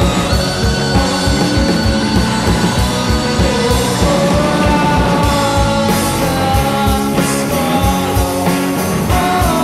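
Indie rock band playing live: a steady drum beat, electric guitar and a singer's vocals.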